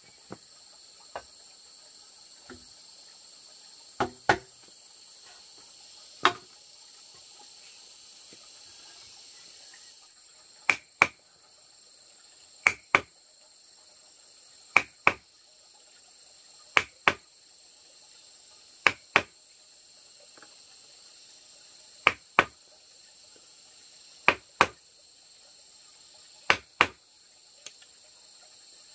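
Wooden mallet striking a metal chisel into a green bamboo pole to cut a hole: sharp knocks, mostly in pairs about every two seconds, with a few single knocks in the first part. Insects chirr steadily behind.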